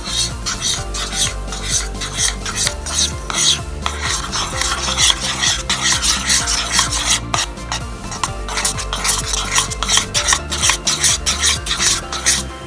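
Clear glue with colouring being stirred in a bowl: quick, repeated wet scraping strokes against the bowl.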